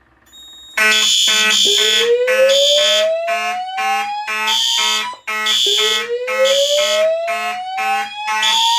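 Fire alarm system going into alarm after a fixed-temperature heat detector is tripped. Mechanical fire alarm horns sound in buzzy on-off pulses from about a second in, and a slow-whoop evacuation tone from the voice evacuation speakers rises in pitch twice, each sweep lasting about three and a half seconds.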